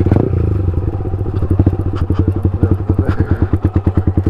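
Yamaha motorcycle with an aftermarket full-system exhaust running at low revs while riding slowly over rough ground. The exhaust pulses come through evenly and distinctly, with a short knock right at the start.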